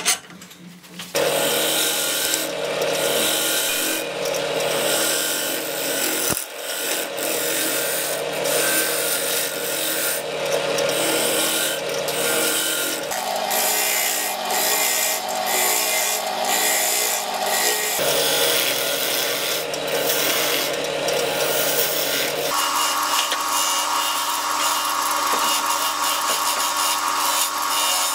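Turning chisel cutting a spinning silverberry blank on a wood lathe: a continuous scraping, shearing noise over the steady hum of the lathe, the sound changing abruptly at several cuts in the footage.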